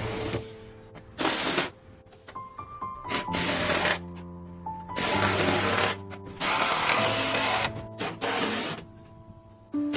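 Background music: held synth notes that step from pitch to pitch, broken by stretches of loud hiss that start and stop abruptly.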